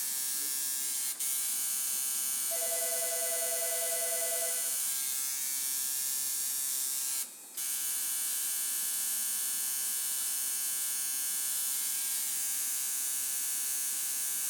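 Electric tattoo machine buzzing steadily. It cuts out for a moment about seven seconds in, then resumes.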